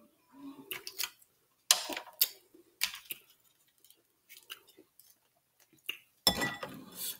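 Mussel shells and shrimp clicking and clinking against a glass dish as they are picked through by hand, in scattered short clicks. A longer stretch of noise comes near the end.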